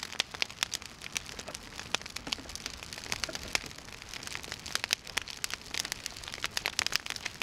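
Newly lit campfire crackling, with many irregular sharp pops and snaps over a steady hiss.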